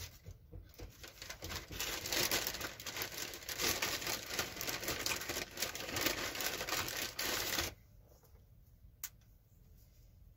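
Clear plastic zip-lock bag crinkling and rustling as a hand rummages through the thin wooden offcuts inside it. The crinkling cuts off suddenly about three-quarters of the way through, and a single click follows near the end.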